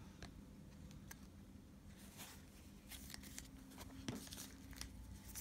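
Faint, scattered soft ticks and rustles of glossy trading cards being handled and slid against one another.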